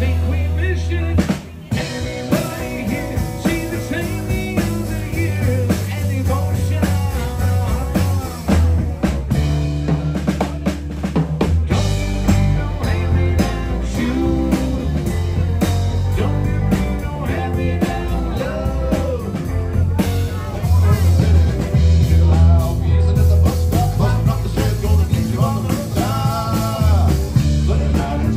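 Live band playing electric guitar, electric bass and drum kit, with a strong bass line and a steady drum beat.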